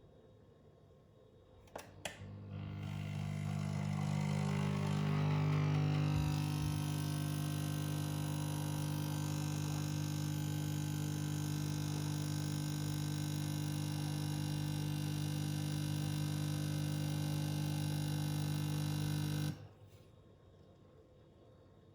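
Nespresso Essenza Mini capsule machine brewing: a button click, then its pump runs with a steady buzzing hum and the hiss of coffee flowing, and cuts off suddenly when the cup is done.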